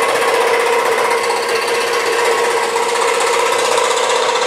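WEN 3921 16-inch scroll saw running steadily, its blade stroking up and down as it makes an interior cut through a thin wooden board.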